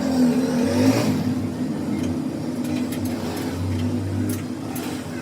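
Steady machine hum from an engine or motor running, with a few light clicks.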